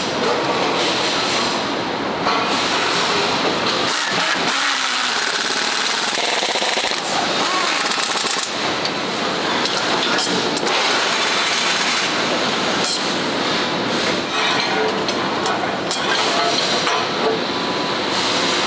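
Assembly-line noise: hand-held pneumatic tools rattling in short runs as bolts are driven, over a continuous factory din.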